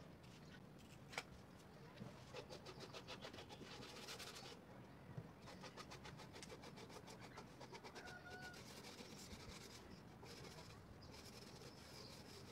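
Faint hand sanding: a sandpaper block rubbed in quick, short, even strokes along the plywood edges of a box frame, in two spells with a pause about five seconds in.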